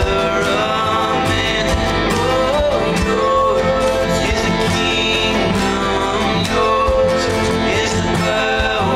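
Worship song playing, with guitar accompaniment and a melody line that may be singing.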